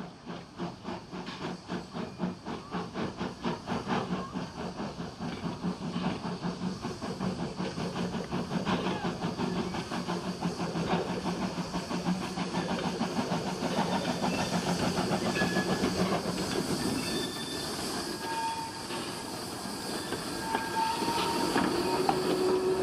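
Small steam tank locomotive hauling coaches slowly toward and past the listener, its exhaust chuffing in a quick, even beat, about four a second, that grows louder as it nears, with steam hissing. Near the end, as the train passes, wheels click over the rail joints and brief high squealing tones sound.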